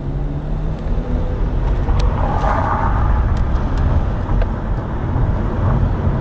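Steady low rumble of a motor vehicle, with a brief noisier swell about two and a half seconds in.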